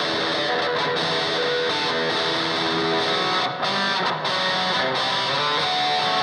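Electric guitar played through distortion, a riff of changing chords and notes.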